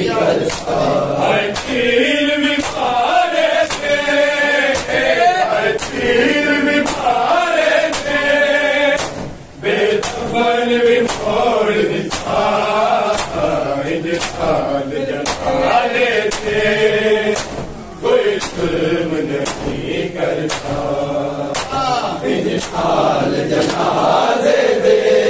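Male mourners chanting a noha in unison, with a steady rhythm of hand slaps on bare chests (matam), a little more than one slap a second. The chant breaks off briefly twice.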